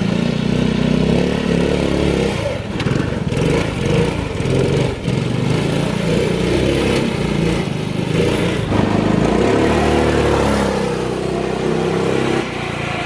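Small gas engine of a gas-swapped Power Wheels ride-on car running under load as it is driven, its revs rising and falling. It gets quieter near the end as the car pulls away.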